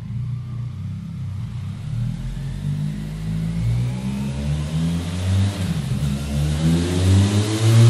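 Benelli 502 C's 500 cc parallel-twin engine revving through a MIVV MK3 aftermarket silencer. The revs build in waves, pitch and loudness climbing from about two seconds in to a peak near the end.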